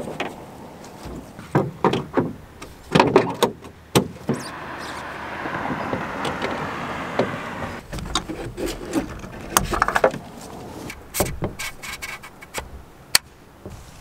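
A canoe being handled and loaded onto a pickup truck: a series of sharp knocks and bumps, with a few seconds of steady sliding scrape in the middle.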